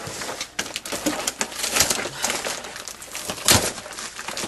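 Cardboard box and plastic packaging being handled: rustling and crinkling with scattered small clicks, and a louder knock about three and a half seconds in.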